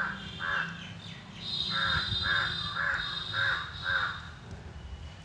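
A crow cawing over and over, with a run of quick caws about two to three a second, over a low steady hum.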